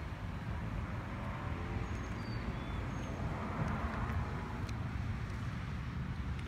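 Steady low rumble of outdoor background noise, with a few short high chirps about two to three seconds in.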